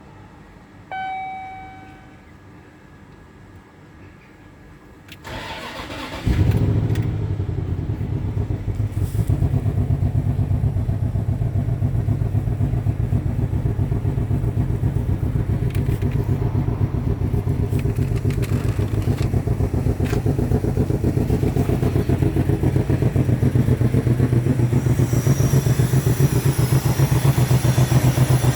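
A short dashboard chime about a second in, then the L322 Range Rover's 4.4-litre V8 is cranked by the starter, catches about a second later and settles into a steady idle. The engine has a random misfire that the owner puts down to faulty ignition coil packs on cylinders 3 and 7.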